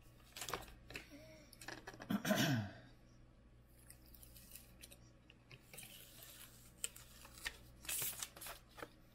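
Adhesive backing liner being peeled off a silicone bed heater pad, with crinkling and crackling of the paper liner. It is loudest about two seconds in, and there is more crinkling near the end.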